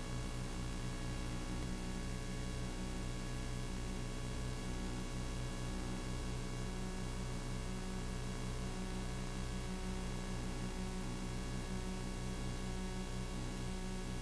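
Steady electrical hum with a stack of even tones and a hiss underneath, unchanging throughout: the film was silent, so this is the noise of its transfer to video rather than recorded sound.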